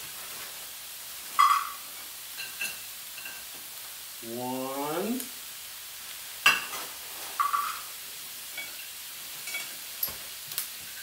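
Vegetables sizzling steadily in a hot frying pan, with sharp clinks and knocks of a metal measuring cup as cut green beans are scooped and tipped in; the loudest clink comes about six and a half seconds in.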